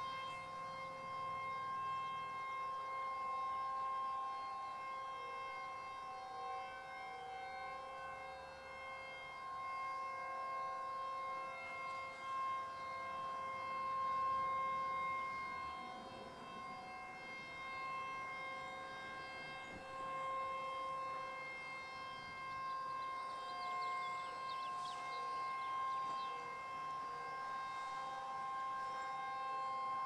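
Distant outdoor warning sirens, Federal Signal 2001s and Eclipse 8s, sounding a steady tone together at several slightly different pitches during a monthly test. The siren on the close pole stays silent: it failed to activate.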